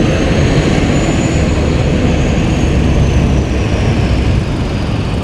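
Loud, steady roar of a passing engine, with a faint high whine that rises slightly and then slowly falls.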